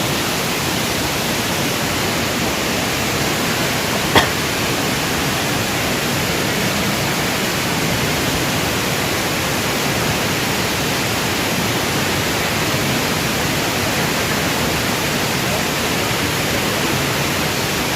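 Waterfall's falling water rushing as a steady, even noise, with one brief sharp click about four seconds in.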